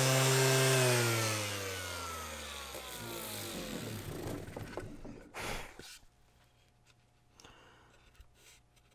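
Kobalt brushless cordless random orbital sander switched off, its motor and pad spinning down in a steady falling whine that fades away over about five seconds. A brief handling noise comes near the end as it is set down, then it is nearly quiet.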